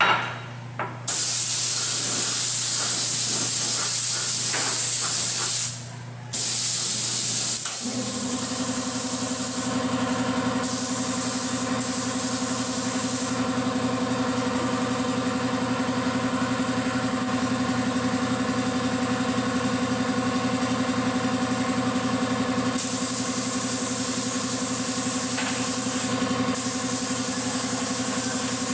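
Gravity-feed paint spray gun hissing in two long bursts; then, about eight seconds in, an air compressor starts and runs steadily with a pitched hum under fainter air hiss.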